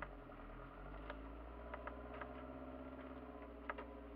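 Kia Sportage 4x4 engine running steadily under load, heard from inside its cabin, as it crawls up a snowy off-road track. A few sharp clicks and knocks cut through the engine sound, the loudest one near the end.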